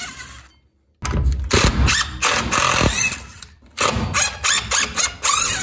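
Cordless impact driver hammering as it backs the screws out of a galvanized steel truss clip, in several bursts with short pauses between them.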